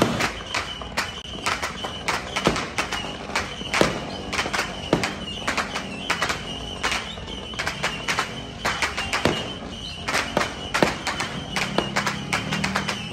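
Fireworks and firecrackers going off in a rapid, irregular string of sharp bangs and pops, with a high steady tone running through much of it.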